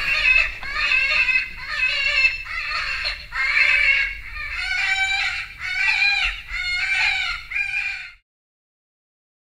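Electronic predator caller playing a prey distress sound: a series of high, wavering squealing cries about once a second, cut off abruptly about eight seconds in.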